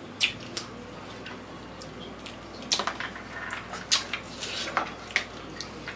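Close-mic eating sounds of biting and chewing juicy watermelon: wet mouth smacks and slurps, with a few sharp clicks scattered irregularly, grouped just after the start and again in the second half.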